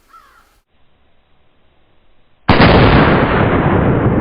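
A Tannerite exploding target going off: a sudden, very loud blast about two and a half seconds in, followed by a long rumble that lasts about three seconds.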